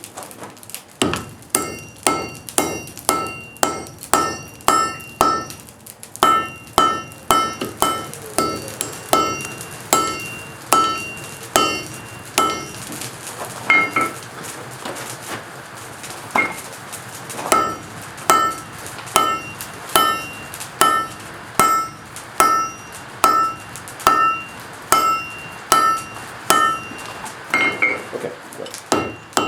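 Forging hammer striking steel on an anvil in a steady rhythm of about two blows a second, each blow ringing. The blows thin out for a few seconds about halfway through, then pick up again.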